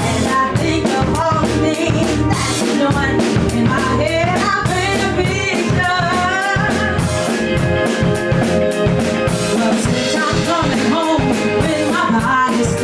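A band playing a song: a drum kit keeps a steady beat under sustained bass notes and a wavering melody line.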